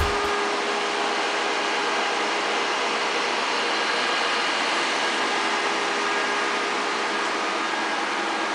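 Cooling fans of a render farm of six open-frame Core 2 Quad PCs running together: a steady, even whir and hiss with a few constant hum tones.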